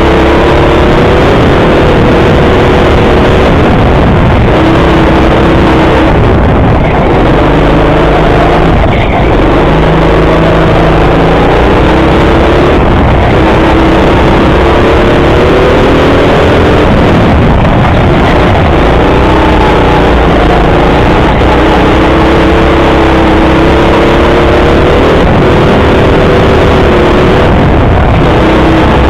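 Go-kart driven hard around an indoor track, heard from on board: a constant rough noise, with the kart's motor note rising on the straights and dropping back into the corners over and over.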